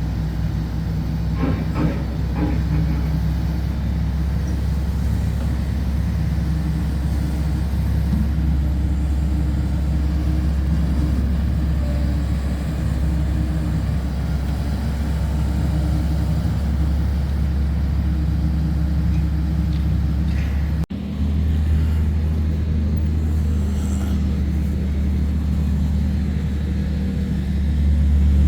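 Heavy construction machinery running steadily with a deep engine rumble and held low tones. The sound cuts off abruptly about two-thirds of the way in, then resumes at a slightly different pitch.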